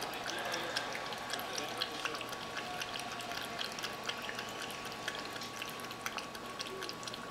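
Sphynx cat lapping water from a glass: a quick, irregular run of small wet clicks and splashes.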